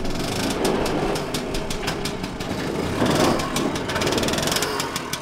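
Compact excavator's diesel engine running at work, a steady mechanical noise with many quick clicks and knocks over it.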